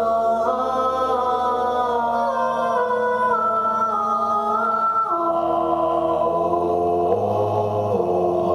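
Choral vocal music begins abruptly: voices holding sustained chords that step to new, lower chords a few times in the second half.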